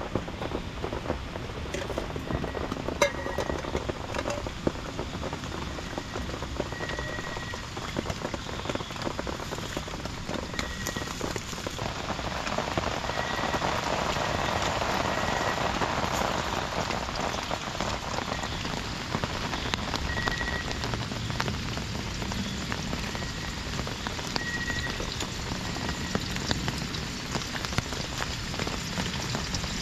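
Heavy rain pattering and drumming on the tent fabric, heard from inside the tent, a dense hiss of many small drops.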